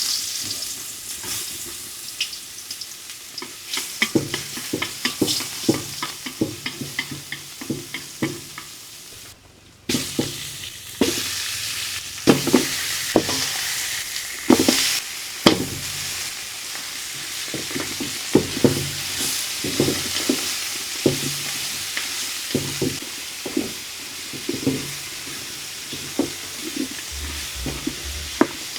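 Food sizzling as it fries in a pan, stirred with a utensil that clicks and scrapes against the pan many times. The sizzle cuts out briefly about nine seconds in, then carries on.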